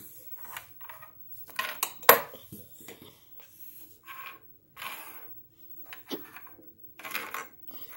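Small plastic mini football helmets flicked and knocked against each other on a wooden tabletop: a run of sharp clicks and clacks, the loudest about two seconds in.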